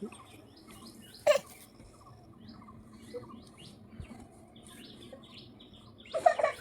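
Small birds chirping and twittering, many short scattered chirps, with two louder short calls, one about a second in and one near the end.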